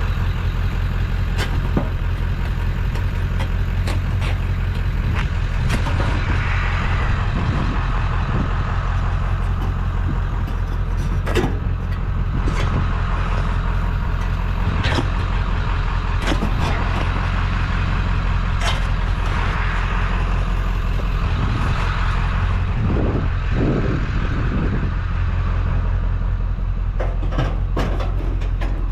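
A truck engine idling, rumbling away steadily, with scattered clanks and knocks of metal on metal as scrap metal is handled.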